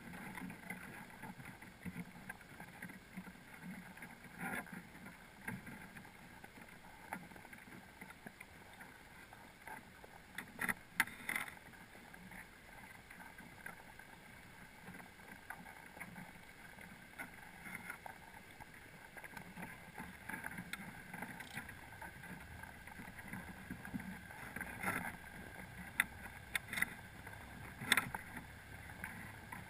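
Muffled underwater noise heard by a GoPro sitting in a crab pot on the sea floor: a steady low wash of water, with sharp clicks and knocks now and then. There is a cluster of clicks about ten seconds in and several more near the end.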